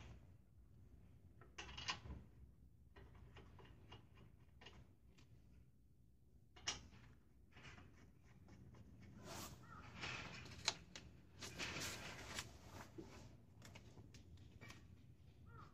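Quiet handling noises: faint metallic clicks and scrapes as lug nuts are threaded by hand onto a car wheel's studs, with a stretch of rustling about two-thirds of the way through.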